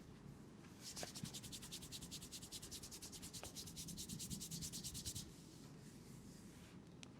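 Fast, even rubbing strokes, about ten a second, starting about a second in and stopping after about four seconds.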